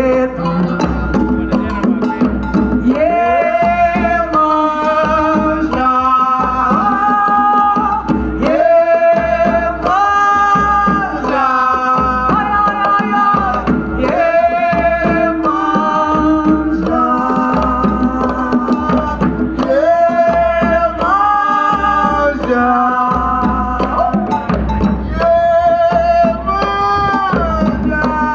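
Live Brazilian coco music: a sung melody of long held notes that slide into pitch, over congas and a pounding bass drum.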